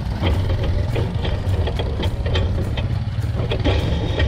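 Quad bike engine running low and steady as the quad is ridden slowly, with frequent short clicks and rattles over it.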